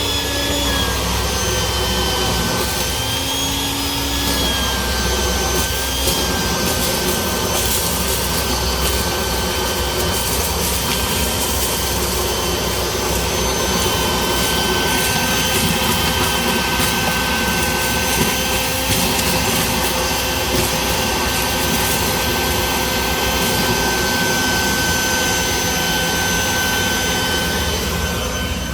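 Vacuum cleaner running steadily, cleaning out mouse debris from a generator controller panel. The motor's high whine wavers in pitch for the first few seconds and then holds steady.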